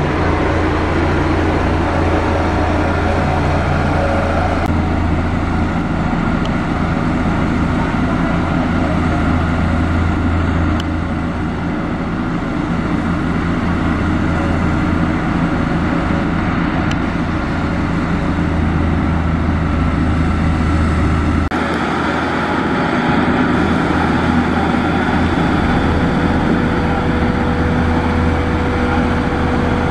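Motor grader's diesel engine running steadily under load, a low hum with a noisy rumble above it. The sound changes abruptly twice, about five seconds in and again about twenty-one seconds in.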